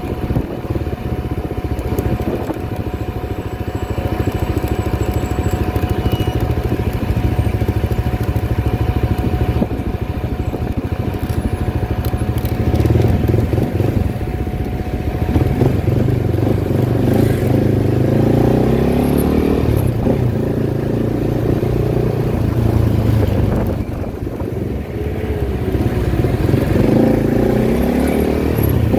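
CFMOTO 300SR's single-cylinder engine running under way, its pitch rising and falling several times with the throttle, and easing off briefly about three-quarters of the way through.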